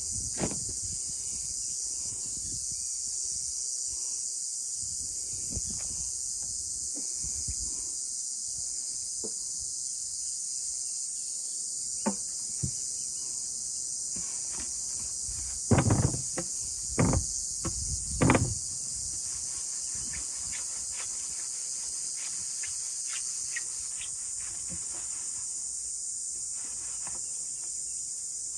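Steady high-pitched chorus of crickets and other insects, with a few knocks from handling the drum shell; the loudest cluster comes a little past halfway.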